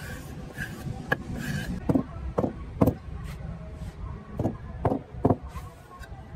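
Wooden strip and hand working freshly laid wet cement on a tile slab: a run of short, sharp scrapes and knocks, irregularly spaced, over a steady low background rumble.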